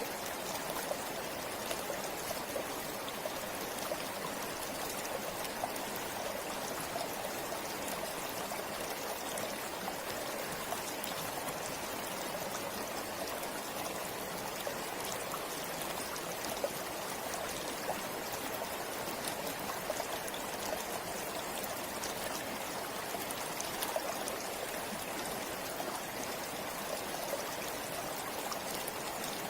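A river or stream flowing steadily over rocks: a constant rush of water with small splashes and trickles.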